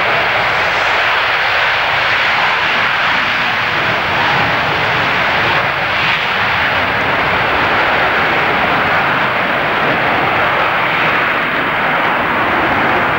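Air France Concorde's four Olympus 593 turbojets at takeoff power during its takeoff roll and climb-out: a loud, steady jet noise.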